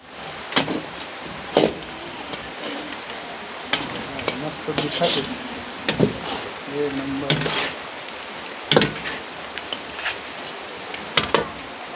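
Goat meat frying in oil in a large metal kadhai, sizzling steadily, while a perforated metal ladle stirs it, scraping and knocking against the pan with irregular sharp clacks.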